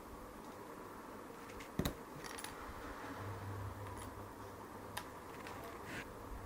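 A few sharp clicks and taps from small tools and parts being handled during bench work on a drone. The loudest click comes just before two seconds in, with lighter ones at about four, five and six seconds, over a steady low hum.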